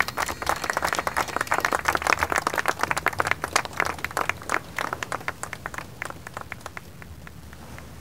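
A group clapping: dense applause that thins to scattered claps and dies away over several seconds.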